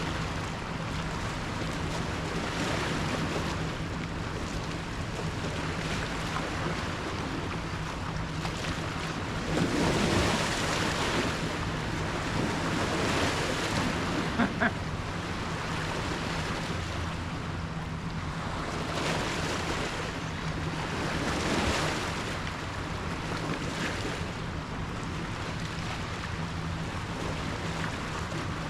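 Wind buffeting the microphone in gusts over the steady low hum of a boat motor, with a couple of sharp clicks about fourteen seconds in.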